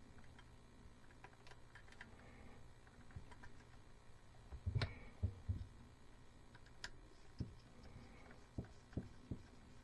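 Hands working small parts and wires at a light fixture: scattered light clicks and taps, a few louder low knocks about halfway through, then a sharp click and more light knocks.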